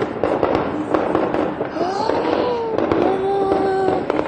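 Rapid gunfire: a dense run of sharp cracks in quick succession. A drawn-out shout rises over it about halfway through and is held for about a second.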